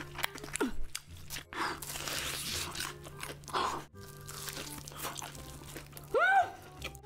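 Crunchy bites and chewing of the crust of a giant breaded, deep-fried turkey leg, a run of crackling crunches. A short rising-and-falling hum of the voice near the end.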